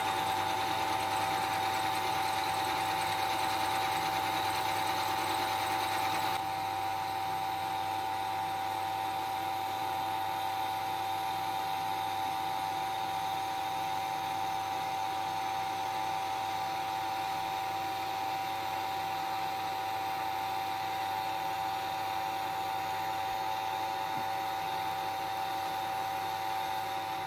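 CNC milling machine running a carbide end mill at 500 RPM through a cast iron square casting on a rough cut, a steady whine with machining noise. It turns slightly quieter about six seconds in.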